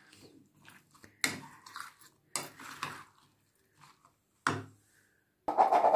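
Metal spoon scraping and clinking against the bowl while stirring a thick yogurt-and-mayonnaise vegetable salad: several separate strokes about a second apart, the loudest near the end.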